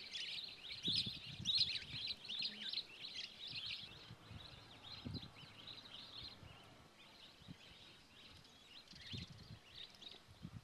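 Small birds chirping and twittering busily, loudest in the first few seconds and thinning out after. A few soft low thuds come through underneath.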